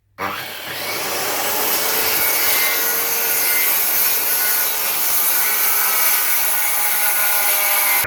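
Circular saw cutting through a melamine board along a guide rail: a loud, steady cutting noise that starts abruptly just after the start.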